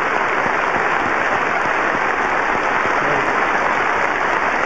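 A large audience applauding steadily in a standing ovation, a dense, even wash of many hands clapping.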